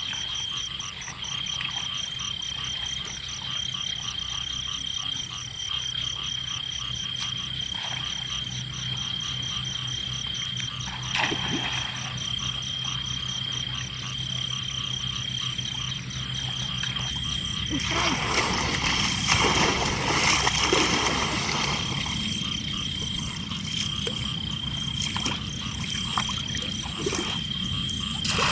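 Frogs calling over a steady high-pitched trill, with water splashing in the last ten seconds as bamboo basket fish traps are pushed and lifted in shallow water.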